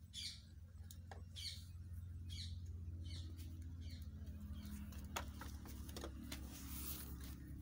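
Honeybee colony humming steadily from an opened wooden hive box, its frames covered in bees. A small bird chirps in short repeated calls about once a second over the hum.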